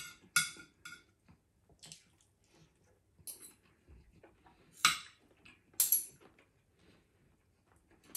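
Metal spoon and fork clinking and scraping against a ceramic plate while eating, in irregular sharp clinks; the loudest come about five and six seconds in.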